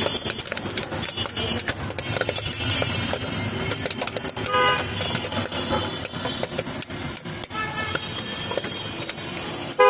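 Busy street noise with scattered clicks and knocks, cut by short vehicle horn toots about halfway through and again near the end.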